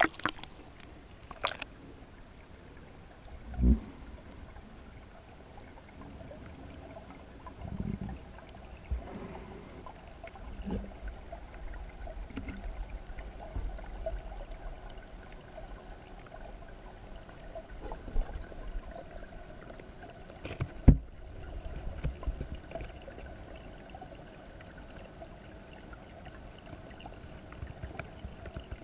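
Muffled underwater sound of a goldfish pond, heard through a GoPro Hero3+ in its waterproof housing: a low steady water rumble with a faint steady hum. Now and then there is a dull thump, and one sharper knock comes about two-thirds of the way through.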